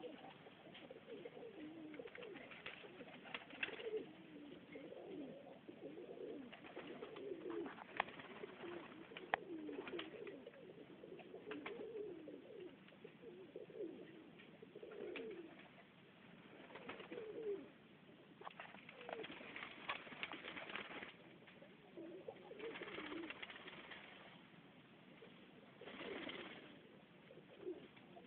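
Serbian Highflyer pigeons cooing, many short warbling coos overlapping one after another, with a couple of sharp clicks and a few short bursts of rustling.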